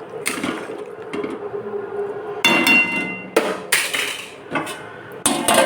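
Metal cookware clattering: several sharp knocks and clinks of utensils against a cooking pot, one of them ringing with a metallic tone.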